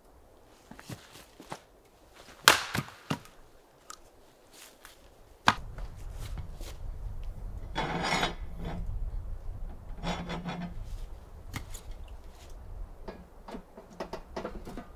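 A few sharp knocks and clatters, then two scraping strokes about two seconds apart, something rubbed or dragged over a surface. A low steady rumble sets in about halfway through.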